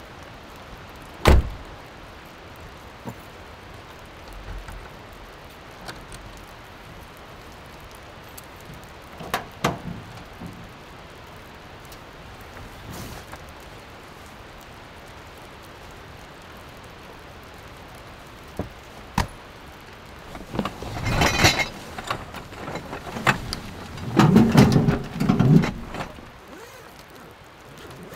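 Steady rain falling, with one loud thump of a pickup truck door shutting about a second in and a few lighter knocks later. Near the end, heavy rustling and handling of the canvas tent bags as they are set down on the ground.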